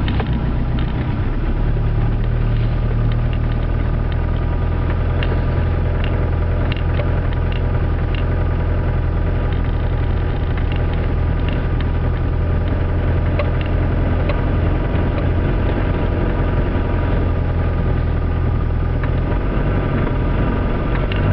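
Land Rover Discovery 300Tdi's 2.5-litre four-cylinder turbodiesel running steadily as it drives along, heard from inside the cabin as a low drone, with scattered faint clicks.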